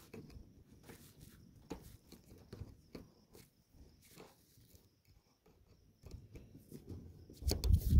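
Faint metal clicks and scrapes of needle-nose pliers bending a wire hose staple closed against wire fencing, clipping welded-wire and chicken-wire fences together. Louder rustling and thumps come in near the end.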